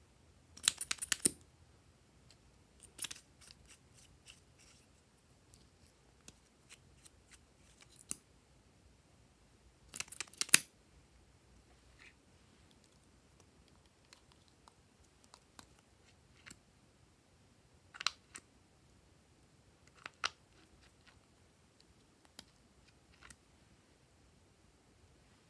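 Glossy slime being worked by hand: scattered short, sticky clicks and crackly pops, with louder clusters about a second in and again near the middle.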